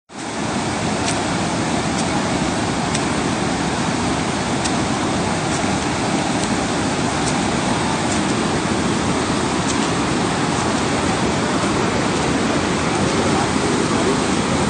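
Floodwater released from reservoir gates rushing through a washed-out road, a loud, steady rush of water.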